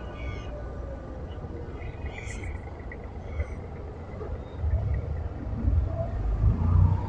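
Low, steady rumble of an abra water-taxi's engine under way, growing louder about halfway through.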